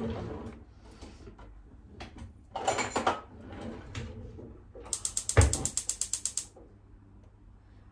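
Gas hob's spark igniter clicking rapidly, about ten clicks a second for a second and a half, as a burner is lit. Earlier, a short rattle of cutlery from a kitchen drawer.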